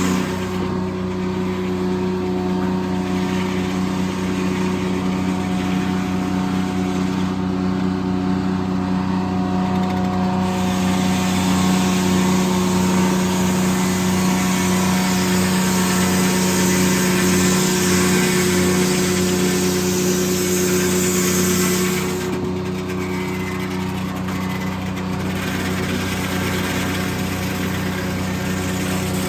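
Corley circle sawmill running steadily with a constant mechanical hum. From about a third of the way in until about three quarters through it gets louder and hissier as the circular blade cuts through a white oak log, then drops back to the steady running sound.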